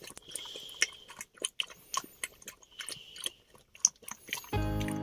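An animal chewing and crunching its food with irregular crunches. Background music comes in near the end.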